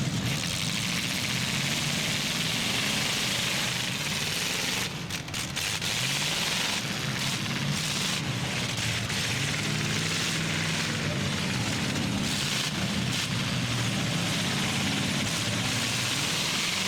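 Demolition derby trucks and SUVs running hard, their engines revving up and down in pitch over a steady loud hiss, with a brief lull about five seconds in.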